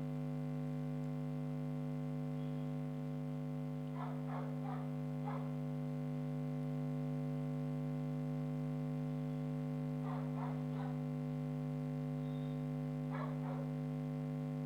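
Steady electrical mains hum, with a dog barking faintly in short runs of three or four barks: about four seconds in, about ten seconds in, and again near the end.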